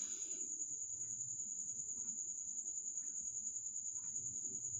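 A steady high-pitched tone runs throughout, over a low sizzle from oil frying on low heat in a wok. A few faint clinks come from a wire spider skimmer lifting fried bottle-gourd pieces out of the oil.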